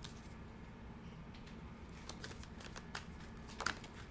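Tarot cards being shuffled by hand: quiet, scattered card flicks and riffles, thickening in the second half, with one sharper snap near the end.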